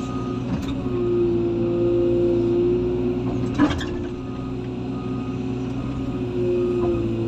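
Heavy-equipment diesel engine running steadily, with a whine that swells louder about a second in and again near the end. There is a single sharp knock a little past the middle.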